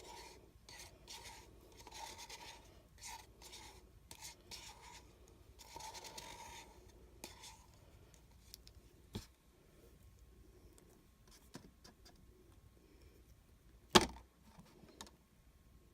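Paint being scraped and stirred in a cup, a run of short rubbing scrapes. It then goes quieter, with a few light clicks and one sharp knock about fourteen seconds in.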